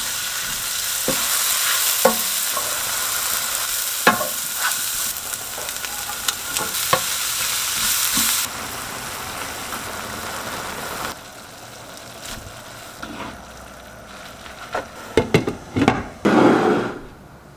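Sliced shiitake mushrooms and shredded vegetables sizzling in hot shallot oil in a nonstick pan, with a wooden spatula stirring and knocking against the pan; the sizzle turns quieter about eight seconds in. Near the end come a few clattering knocks as a glass lid is handled on the pan.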